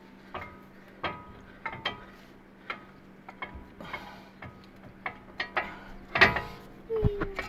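Irregular metallic clicks and clinks of a brake pad and its steel clips being worked into a caliper bracket, each tap ringing briefly, with a louder cluster about six seconds in. A short falling squeak comes near the end, over a faint steady hum.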